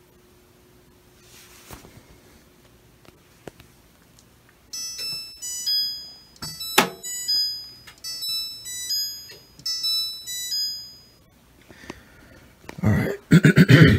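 Maytag front-load washer's electronic signal playing a short melody of stepped beeps over about six seconds, the cycle signal as the washer goes into its wrinkle control phase. A loud rumbling burst follows near the end.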